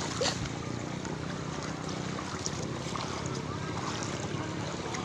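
Floodwater running through a flooded street: a steady rushing wash of water with a few faint splashes.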